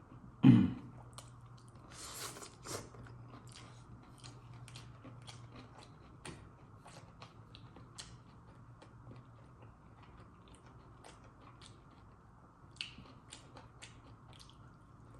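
Close-miked chewing of pork adobo, with many small wet mouth clicks and smacks spread through. There is a brief loud low thump about half a second in.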